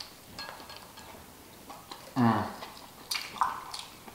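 Scattered small clicks and crackles of shellfish from a seafood boil being cracked and eaten, with a brief murmur from an eater about two seconds in and a sharper crackle about a second later.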